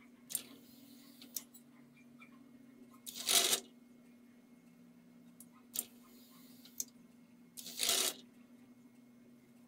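Sharp clicks of a small 12 V relay on a remote-controlled breadboard circuit switching, in two sets: a click, about a second of faint hiss, another click, then a louder rustling burst about half a second long. A low steady hum runs underneath.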